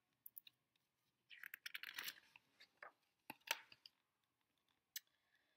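A picture book's page being turned by hand: quiet paper rustling and crinkling in a few short bursts, with light ticks.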